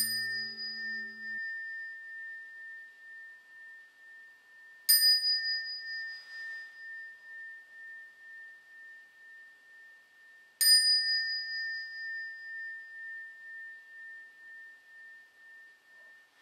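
A small handheld Zen bell (inkin) struck with a thin striker three times, about five seconds apart. Each strike gives a clear high ring that fades slowly, pulsing as it dies away.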